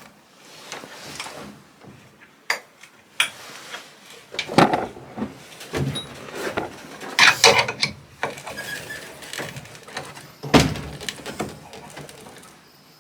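Irregular knocks, scrapes and rattles of hand work on a wooden shed wall while an eye bolt is fitted, with the loudest clunks about four and a half, seven and a half and ten and a half seconds in.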